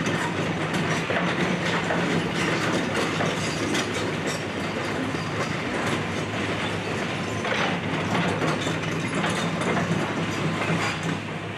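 Excavator's engine running steadily under continuous clanking and crunching as it breaks up and moves demolition debris.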